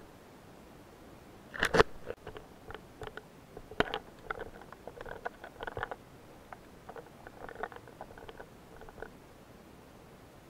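Irregular clicks, crackles and knocks heard underwater, with one loud knock about two seconds in and another near four seconds, dying away after about nine seconds.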